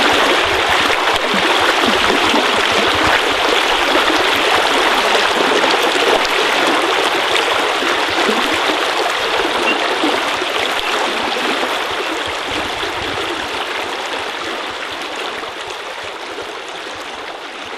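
Flowing water, a steady rushing babble, fading out gradually over the second half.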